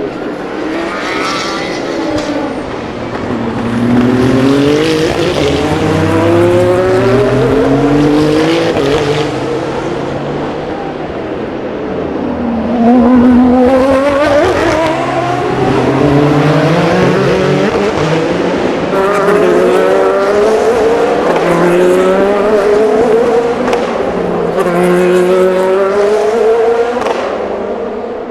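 Endurance race cars accelerating hard out of a slow corner one after another, each engine rising in pitch and stepping down with every upshift as it pulls away.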